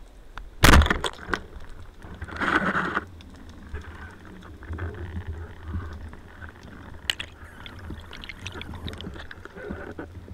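Band-powered speargun fired underwater: one sharp crack about a second in, the loudest sound. It is followed by a short burst of hissing water noise, then a low underwater rumble with scattered small clicks.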